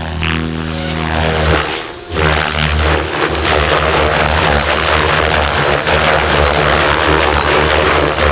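ALIGN T-REX 700X electric RC helicopter flown hard in low aerobatics, including inverted passes: its main rotor blades beat and hiss over a steady pitched whine, with a brief dip about two seconds in.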